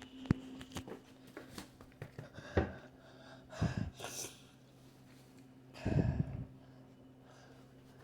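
Three short breathy puffs of air about two and a half, three and a half and six seconds in, with a few sharp clicks near the start and a faint steady hum underneath.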